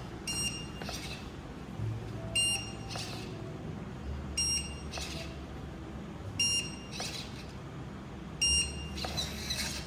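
Electronic beeps from the dancing-robot system while it synchronizes: five short high-pitched beeps, about two seconds apart.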